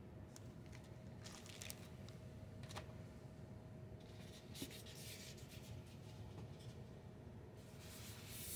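Faint rustling and rubbing of packaging being handled: a manual in a plastic sleeve, then a styrofoam box lid being lifted off. It comes in several short bursts over a faint steady hum.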